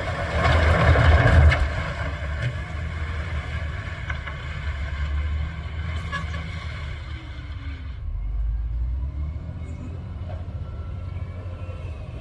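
Diesel engine of a heavy earthmoving machine running, loudest and harshest in the first second or so, then settling to a steady low rumble that sounds duller near the end.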